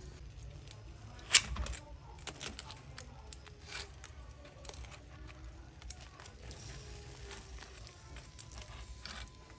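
Metal tongs clicking and scraping against a wire grill rack as whole fish are turned over charcoal, with one sharp clack about a second in and lighter clicks scattered after it.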